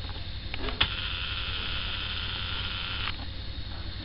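Steady low rumble of the road sweeper truck working. About a second in, a camcorder's zoom motor clicks on and whirs until it stops abruptly near three seconds.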